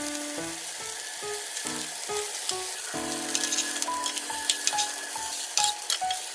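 Small rice patties sizzling in hot oil in a nonstick frying pan, with a metal spatula scraping and tapping against the pan from about halfway through. Light background music with plucked notes and a steady beat plays along.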